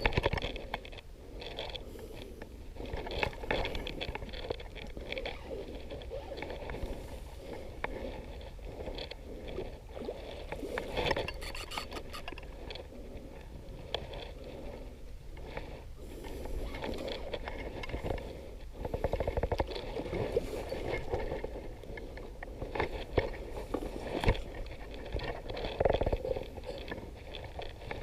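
Irregular scraping and rustling handling noise from an angler fighting a hooked pike on rod and reel, with uneven louder bursts and no steady rhythm.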